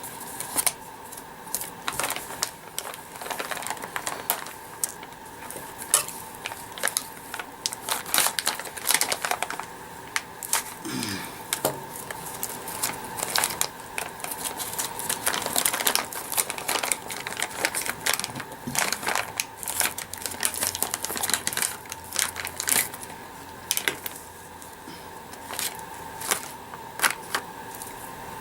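Irregular small clicks, taps and crinkling as RC crawler parts and the speed controller (ESC) are handled and fitted by hand at a workbench.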